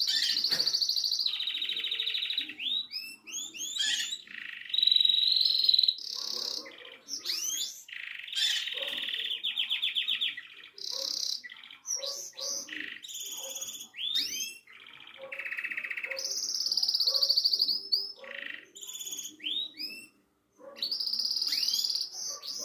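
Belgian canary singing a long, continuous song of rapid trills and rolling phrases, with quick rising notes between them and brief pauses.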